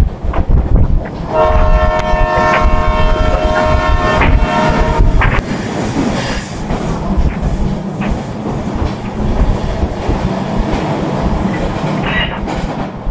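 A train horn sounds one steady, held blast for about four seconds, starting about a second in, over the rumble and wheel clatter of the moving train heard from an open carriage door.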